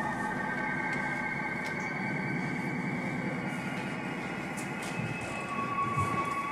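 Electronic music with several sustained high drone tones over a dense rumbling hiss, like a subway train's motor whine and wheel noise, with a few faint clicks.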